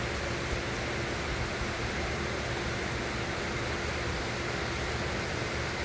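Steady rain falling, an even hiss with a faint steady hum underneath.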